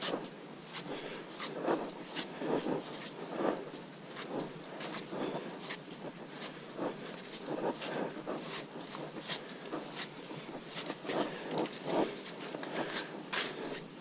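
Footsteps on a muddy dirt trail, an uneven crunch and scuff of steps about one to two a second.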